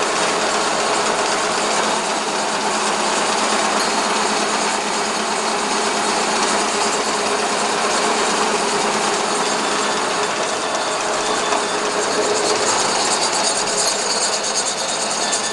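Model 532 gear hobbing machine running, its gear train giving a steady, dense mechanical clatter.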